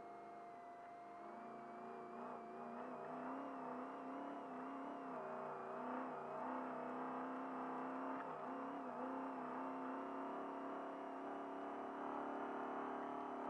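Trophy Truck's engine pulling as the truck accelerates, heard from inside the cab, its pitch wavering and climbing gradually. A steady thin whine runs underneath.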